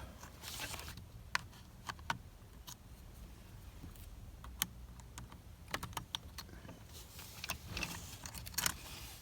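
Scattered sharp plastic clicks and small taps, at uneven intervals, as hands and a small tool work at the clips and trim of a VW Jetta's steering column and clock spring, with brief rustling near the start and near the end.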